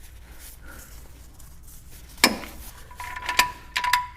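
Socket wrench with a 13 mm socket fitted to the oil drain plug and worked to tighten it: a single sharp metal clink about two seconds in, then a quick, irregular run of light metallic clicks near the end.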